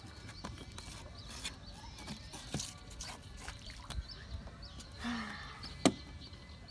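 Scattered light clicks and knocks from a fishing rod and a small hooked fish being swung in on the line, with one sharp knock about six seconds in.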